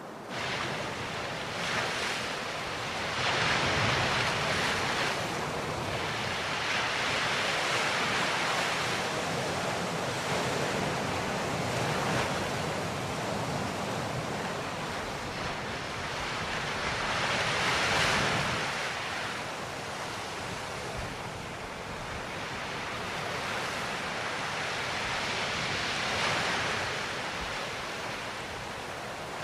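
Sea surf washing onto a rocky shore, swelling and ebbing every few seconds, with wind behind it.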